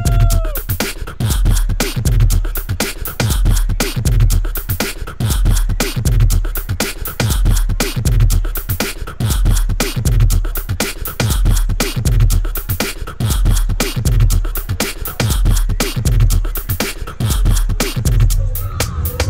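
Electronic sound-design soundtrack of a projection-mapping show: dense, rapid glitchy clicks and percussive hits over a deep bass pulse about once a second. The clicking thins out near the end.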